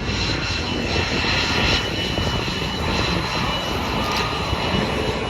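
Aircraft engine noise: a steady, loud rushing sound with a thin high whine running through it.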